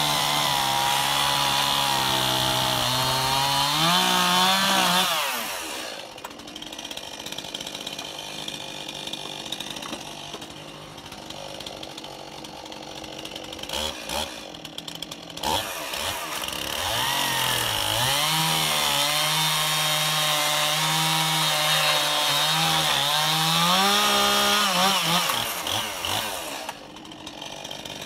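Gas chainsaw cutting through stacked softwood slab scraps (cypress, pine, cedar) for firewood. It makes two cuts: the engine runs steady under load, its pitch rises as each cut finishes, and then it drops back. In between, the saw idles more quietly for about ten seconds.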